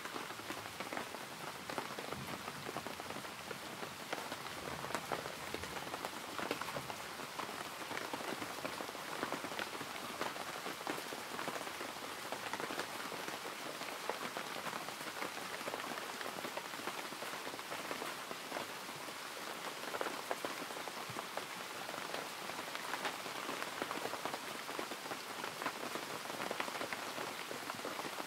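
Steady rain falling on a surface: an even hiss of drops with many fine ticks, with no change in strength.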